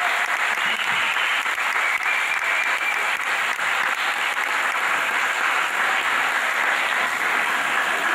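A crowd applauding: dense, steady clapping from many hands.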